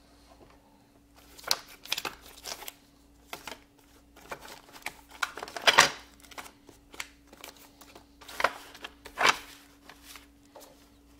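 Handling of a wooden drafting box and its tools: irregular knocks, clicks and rustles as the hinged drawing board is lifted and the drawer of drafting tools beneath it is searched, the loudest knocks about six and nine seconds in. A faint steady hum runs underneath.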